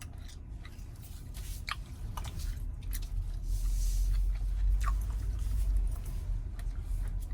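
Someone chewing gum close to the microphone, with wet smacking clicks. A low rumble rises through the middle and fades again.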